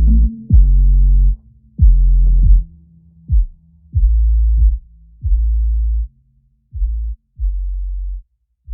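Background electronic music: deep bass notes in a slow, uneven rhythm, each with a sharp attack. The notes get quieter and sparser near the end.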